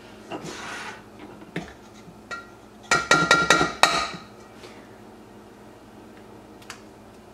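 An egg tapped against the rim of a stainless steel mixing bowl to crack it: a couple of single knocks, then a quick run of about six taps near the middle, each leaving the metal bowl ringing briefly.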